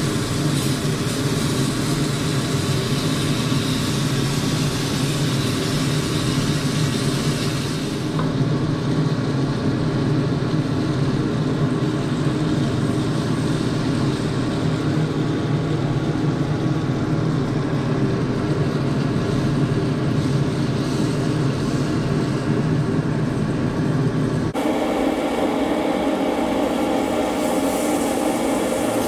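Beef steak frying in butter in a pan over a gas burner: a steady sizzle over a constant low hum. The sizzle thins out abruptly about eight seconds in and returns strongly near the end.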